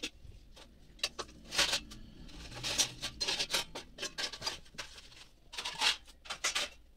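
Fingers handling a smartphone on a wooden table, making irregular rubbing and scratching noises, several short bouts.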